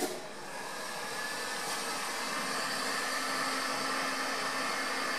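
An electric heat gun is switched on. Its fan motor spins up over the first second, then runs steadily with a faint whine over the rush of air, blowing hot air onto a fresh polyester-resin fiberglass patch to speed its curing.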